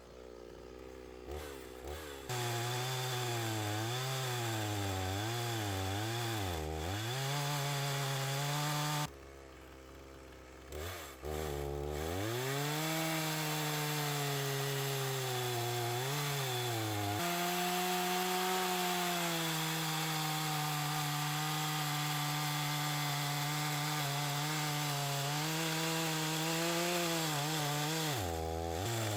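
Chainsaw running at high revs. Its pitch wavers and dips as it works into a log, which is being hollowed out. About nine seconds in it drops away for a couple of seconds, then revs up again and runs fairly steadily.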